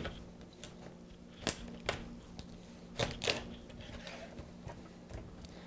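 Knife cutting a rabbit forequarter along either side of the backbone on a cutting board: about four short sharp knocks in two pairs as the blade goes through bone and strikes the board.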